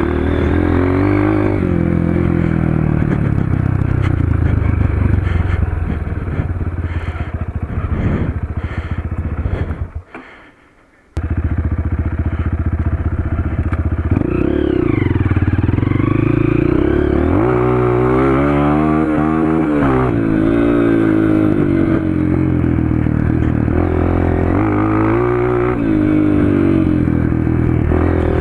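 Honda CRF230 dirt bike's air-cooled single-cylinder four-stroke engine, breathing through an FMF PowerCore 2 exhaust, being ridden hard, its revs climbing and falling again and again. The sound drops out for about a second roughly ten seconds in.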